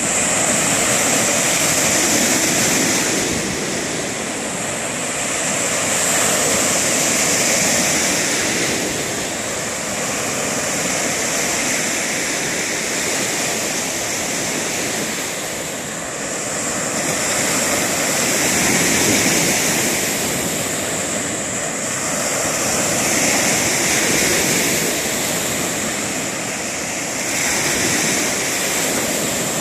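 Lake waves breaking on a sandy shore: a steady wash of surf that swells and eases every five or six seconds.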